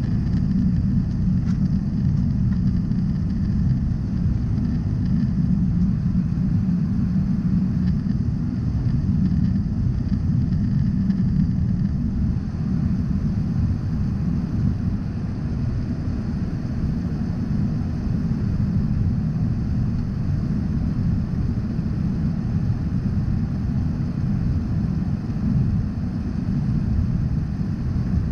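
Steady low rumble of a jet airliner's cabin in flight, engine drone and airflow noise heard from a window seat.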